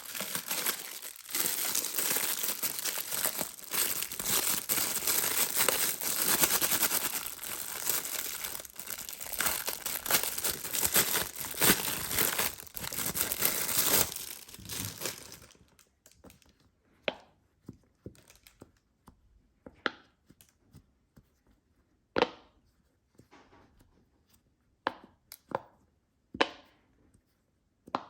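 Plastic packaging crinkling and tearing as it is opened, continuously for about fifteen seconds. It then stops, and scattered sharp clicks and taps follow.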